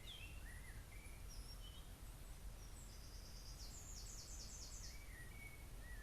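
Small birds singing: scattered short chirps and whistles, with a rapid high trill of repeated notes in the middle, over a faint steady low rumble.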